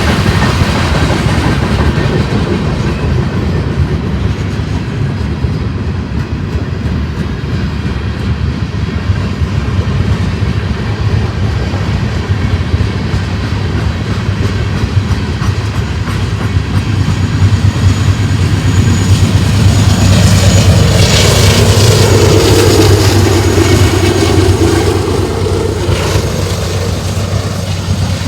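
Freight train rolling past: a steady rumble and clickety-clack of wheels on the rails, growing louder about two-thirds of the way in, when a wavering tone joins it, then easing near the end.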